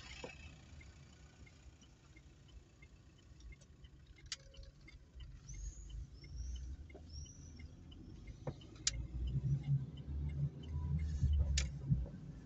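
Low rumble of an Opel Meriva's engine and tyres heard from inside the cabin while driving slowly around a corner, swelling as the car gathers speed near the end. A few short bird chirps come in from outside about halfway through, with a few sharp clicks.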